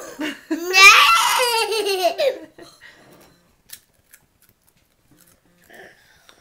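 Small child laughing: one burst of about two seconds near the start, pitch wavering quickly, then only a few faint clicks.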